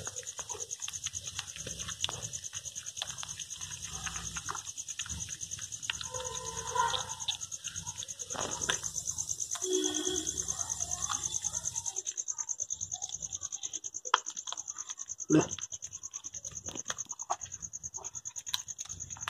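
Crickets chirping in a steady, fast-pulsing trill. Over it come scattered soft clicks of cats chewing food, and a short thump about fifteen seconds in.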